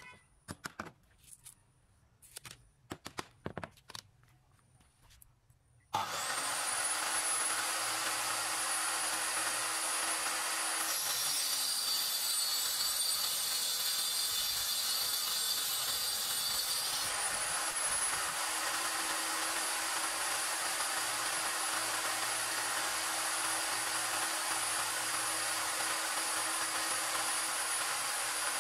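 A few light knocks, then about six seconds in a table saw's motor switches on and its blade spins with a steady high whine. A few seconds later the blade rips through an MDF board, the whine dropping in pitch under the load and rising again when the cut is through, after which the blade runs free.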